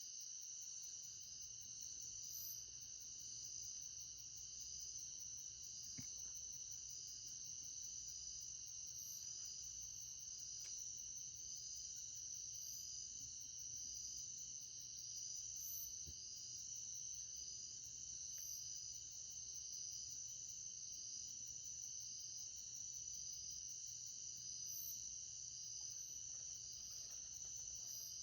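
Steady chorus of insects: a continuous high trilling with a regular pulsing layer above it.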